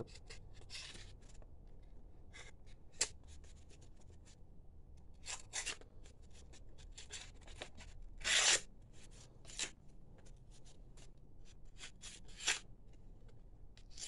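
Small blade of a Bear and Son Barlow slipjoint pocket knife cutting brown paper in a string of short, scratchy strokes, the loudest a little past halfway. The blade is dull: its owner says sharp is not the word for it.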